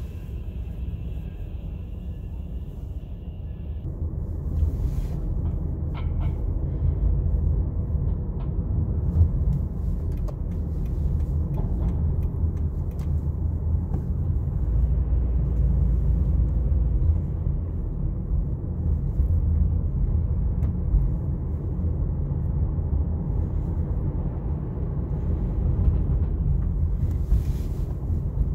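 Car driving slowly on city streets, heard from inside the cabin: a steady low rumble of engine and tyres. A faint high whine runs for the first few seconds, then cuts off.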